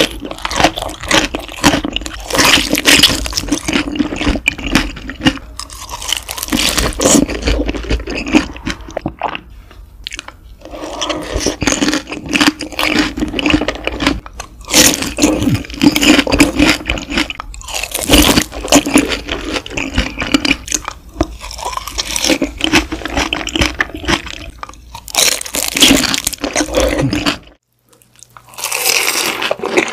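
Close-miked chewing and crunching of crispy grilled beef large intestines (daechang), one bite after another. It stops briefly near the end, then the chewing starts again.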